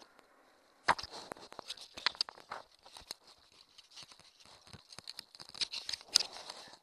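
Handling noise right at the camera's microphone: an irregular run of rustles, scrapes and sharp clicks starting about a second in, as fingers and fabric rub against the chest-mounted camera and its harness while it is taken off. The loudest clicks come about a second in and again near the end.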